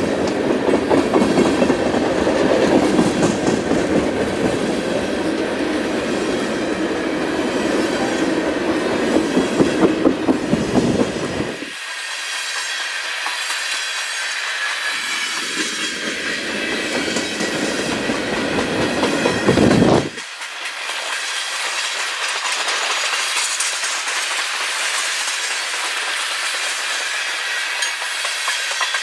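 Freight cars (tank cars and covered hoppers) of a manifest train rolling past close by: steady wheel-on-rail noise with a deep rumble. The rumble cuts out suddenly about twelve seconds in, comes back a few seconds later, and cuts out again about twenty seconds in, leaving a thinner hiss of wheels on rail.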